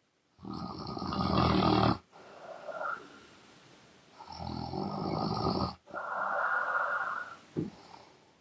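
A woman snoring loudly with her mouth open: two snores about four seconds apart, each followed by a softer breathy sound.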